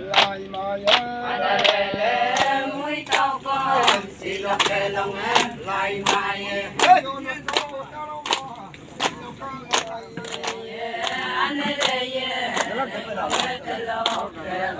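Chorus of women and men singing an Adi ponung dance chant together, with a sharp, even beat about twice a second.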